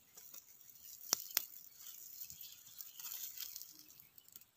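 Faint crackling from a small fire of twigs being poked and handled, with two sharp snaps about a second in and a stretch of rustling around three seconds in.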